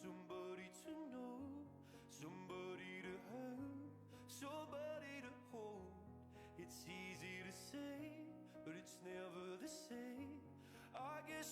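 Quiet background music with a gliding melody over a steady bass.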